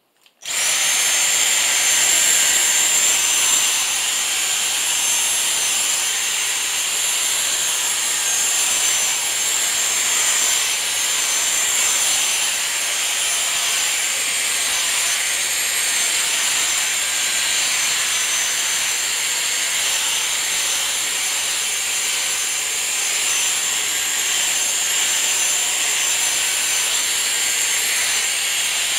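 Dyson V6 Mattress cordless handheld vacuum cleaner running, starting suddenly about half a second in: a steady high-pitched motor whine over a rushing hiss of air, its pitch wavering slightly as the nozzle works over a plush teddy bear.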